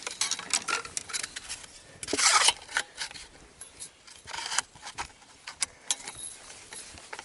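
Clicks, knocks and rattles of fishing gear being handled in a boat while a hooked bass is fought and netted, with one loud rushing burst about two seconds in.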